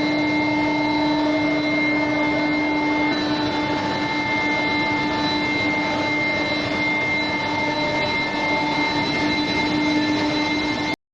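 Steel bar induction heat-treatment line running: a steady industrial noise with several constant whining tones over it. It stops abruptly near the end.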